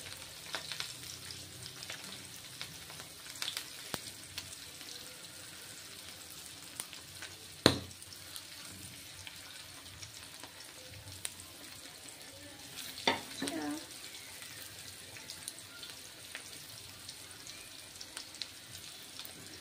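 Semolina-coated rohu fish steaks shallow-frying in oil on a flat iron tawa: a steady sizzle with fine crackling. A sharp knock about eight seconds in and a smaller one about five seconds later.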